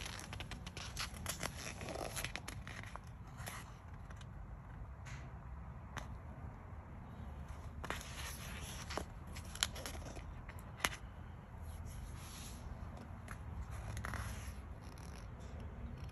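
Pages of a printed book being turned and handled: soft paper rustling with scattered small clicks, and two sharper snaps a little past the middle.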